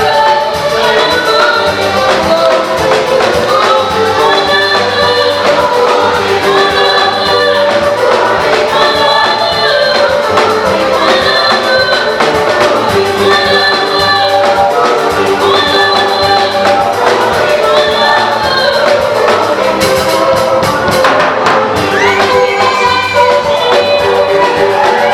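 A choir sings an African gospel song in repeating phrases, backed by a steady percussion beat.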